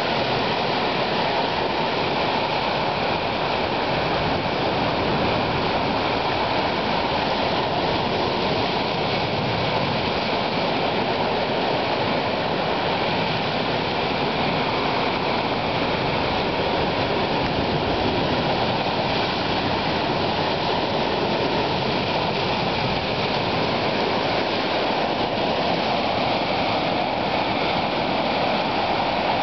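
Ocean surf churning through channels between shoreline rocks: a steady, unbroken rush of white water with no separate crashes standing out.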